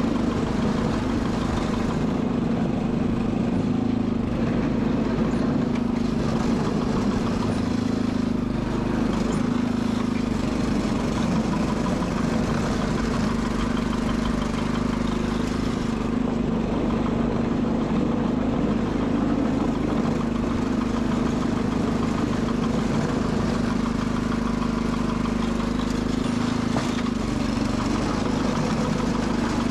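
Sears Suburban SS12 garden tractor's engine running at a steady speed.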